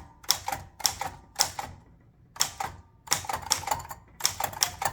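1926 L.C. Smith & Bros. No. 8 manual typewriter with a 26-inch wide carriage, its typebars striking the platen key by key at an uneven pace: single strokes, then quicker runs of several letters. A faint metallic ring hangs on after some strokes.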